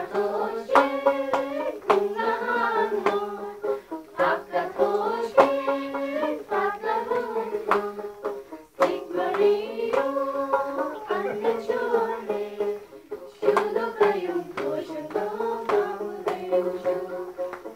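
Traditional Lepcha folk song: voices singing a melody over a plucked string instrument, with sharp beats keeping time. The phrase breaks off briefly about halfway through and starts again.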